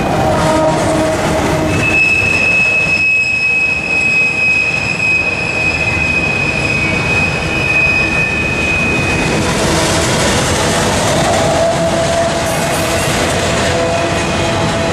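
Empty double-stack intermodal well cars of a freight train rolling past with a steady rumble of wheels on rail. A sustained high-pitched metallic wheel squeal sets in about two seconds in and holds until about nine seconds, and lower, wavering squeals come and go near the start and later on.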